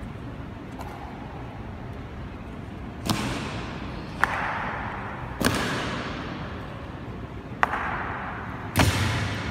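Ceremonial honor guards' drill: five sharp cracks of boot stamps and rifle-butt strikes on the stone floor, each ringing out in a long echo through the hall. The last one is the heaviest.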